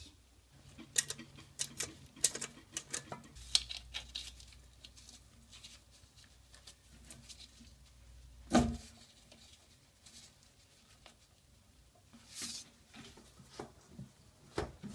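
Small clicks, taps and rustles of plastic toilet shims being handled and worked under the base of a porcelain toilet. One much louder knock comes a little past halfway.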